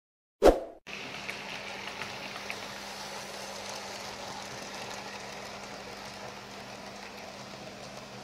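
A short loud thump about half a second in, then the steady rolling noise of a 00 gauge model train running along the layout's track, with a faint ticking and a steady low hum underneath.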